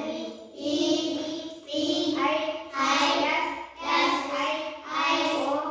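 Children singing in short, evenly spaced phrases, roughly one a second, with a brief dip between each.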